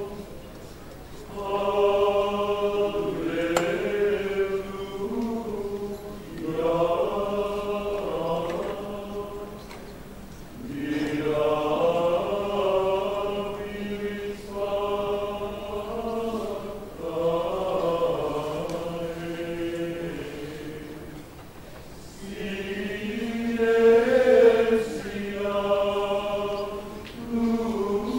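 Men's choir singing Gregorian chant in unison, unaccompanied, in phrases of a few seconds with short breaks between them.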